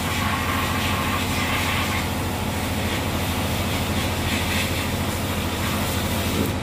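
Sandblasting cabinet in use: the blast gun sends a steady hiss of compressed air and abrasive sand against a cast turbocharger housing, stripping the dirt from it. A steady low hum runs underneath.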